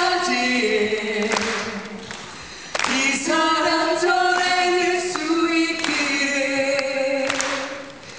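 Male and female voices singing a stage-musical number in long held phrases, amplified in a theatre. The singing drops away briefly about two seconds in and again near the end.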